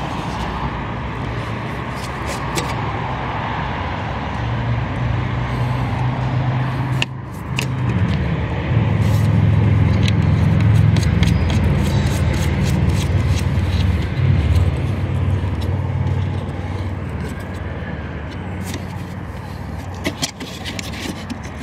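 A steady low motor-vehicle rumble that swells for several seconds in the middle and then eases, with scattered clicks and scrapes from plastic cowl parts and a rubber seal being handled.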